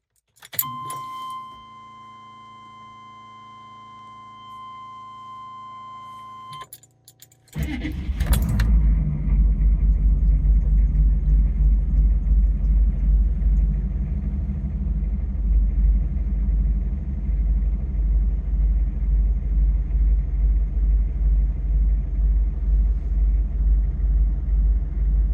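Keys in the ignition, then a steady electrical tone for about six seconds with the key on, before a 6.5-litre GM turbo diesel V8 cranks briefly and catches about eight seconds in. It then idles loudly with an even diesel pulse, running on a freshly installed pump-mounted driver (PMD) with a higher-fuel resistor.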